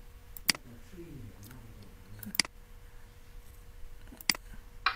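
Three computer mouse clicks, a couple of seconds apart. Right at the end, a short ringing coin-drop chime starts: PowerPoint's "Coin" transition sound playing back.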